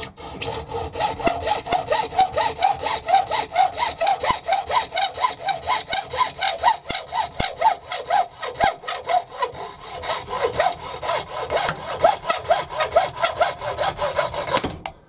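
Hand hacksaw cutting through a plastic chopping board in even, regular back-and-forth strokes, each stroke a rasp; the sawing stops just before the end.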